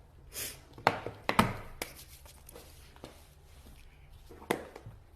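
Hands opening and handling an iPhone box and its packaging: a short rustle, then several sharp taps and clicks of the cardboard and contents.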